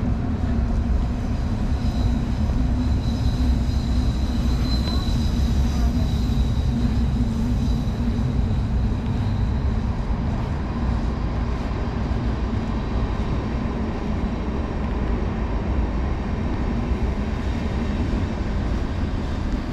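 Train running past with a steady rumble, carrying a high whine for several seconds near the start.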